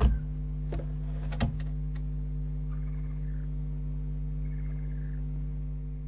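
Steady mains hum on a barn-owl nest-box camera's sound, with a sharp knock at the start and two lighter knocks about a second in as owls move on the wooden nest box. Two faint, short buzzy calls around the middle.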